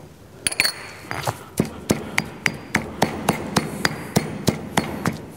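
Stone pestle pounding garlic with salt and chilli flakes in a granite mortar: a steady run of sharp knocks, about three a second, starting half a second in.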